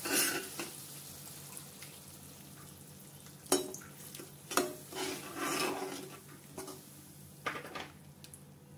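Metal spatula stirring and scraping vegetables in sauce in an iron kadai, with several separate scrapes and knocks against the pan over a low sizzle. A flour-and-water slurry is poured in about four seconds in and stirred through.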